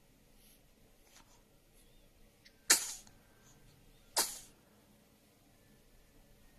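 Newborn baby sneezing twice, about a second and a half apart, each a sharp burst that fades quickly.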